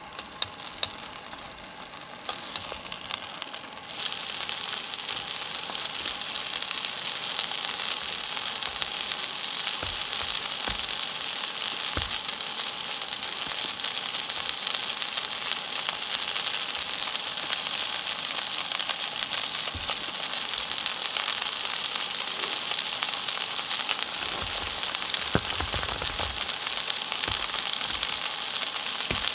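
Steak sizzling in a frying pan over a gas camping stove: a steady frying hiss that grows louder about four seconds in and then holds.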